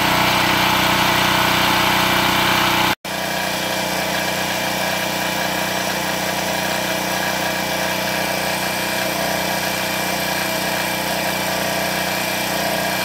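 Generac GP3300 portable generator's single-cylinder engine running steadily under no change of speed, heard up close. About three seconds in the sound cuts out for an instant, then the same steady running is heard from farther away, quieter and with much less low hum.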